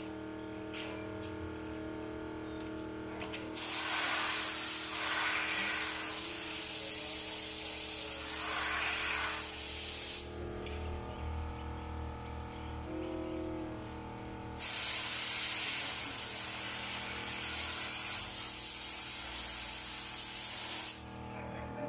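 Compressed-air paint spray gun spraying paint onto a wall: two long, even hisses of about six seconds each, with a pause of about four seconds between them.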